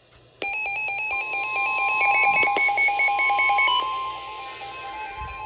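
Electronic alert tone: a rapid pulsing beep on two pitches that starts suddenly about half a second in and gets softer near the end.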